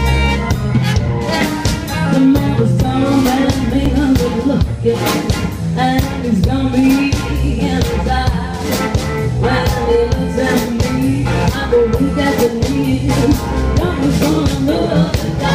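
Live rockabilly band playing: a woman's lead vocal singing over a drum kit and upright bass.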